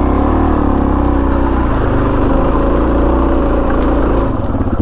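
Dual-sport motorcycle engine pulling steadily under load on a hill climb. About four seconds in the revs drop and the exhaust breaks into a rapid, even pulsing.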